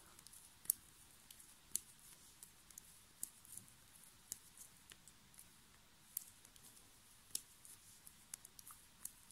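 Faint, irregular clicks of 3 mm metal circular knitting needles tapping together as stitches are knit, roughly one or two a second.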